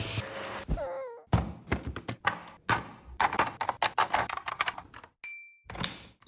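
A rapid, irregular series of knocks and clicks, preceded about a second in by a brief wavering cry, with a short high ping near the end.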